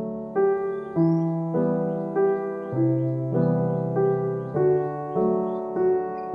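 Background piano music: a gentle, evenly paced melody with a new note or chord about every half second.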